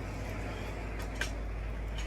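Wind buffeting the microphone as a steady low rumble, with a couple of faint clicks about a second in.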